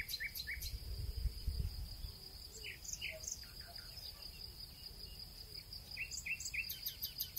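Faint woodland ambience: a steady high insect trill runs throughout while a small bird gives short chirps in groups of two to four, at the start, around three seconds in and again near the end. A low rumble sits under the first couple of seconds.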